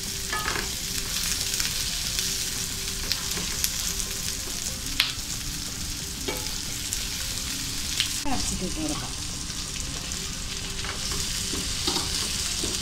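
Onions, tomato and green chillies sizzling in oil in a non-stick pan while a wooden spatula stirs and scrapes them, with a few sharp taps of the spatula against the pan.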